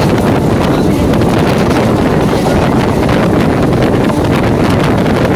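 EMU local train running at speed, heard from on board: a loud, steady rumble with wind buffeting the microphone.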